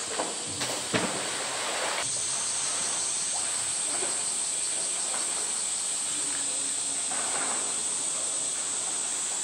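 A polar bear knocks a roly-poly toy against the concrete: a few sharp knocks in the first second. Then water laps and splashes softly as the bear swims in the pool. A steady high hiss runs underneath.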